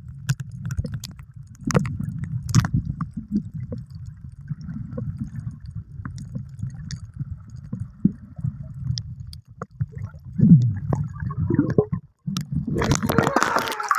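Muffled underwater sound from a phone microphone held below the surface while swimming: a low churning rumble of moving water with scattered clicks and knocks. Near the end the sound turns bright and splashy as the phone comes up out of the water.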